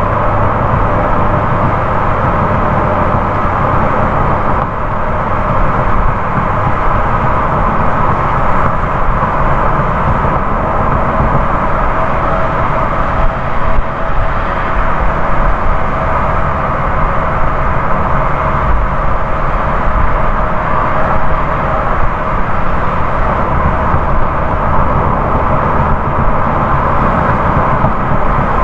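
Car driving at speed on a highway: steady tyre and road noise with wind, unchanging throughout.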